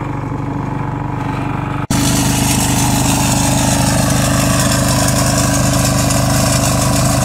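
Small engine of a walk-behind mini tiller running steadily. About two seconds in there is an abrupt cut, and a louder, fuller engine sound takes over and holds steady.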